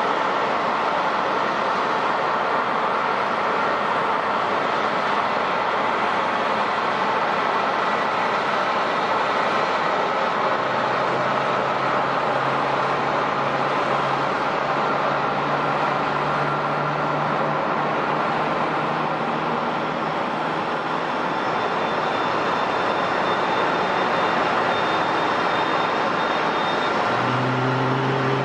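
Airliner engines running steadily: a loud, even rush with a thin high whine. A low droning hum comes in about eleven seconds in and fades after about ten seconds, and another low droning tone starts near the end.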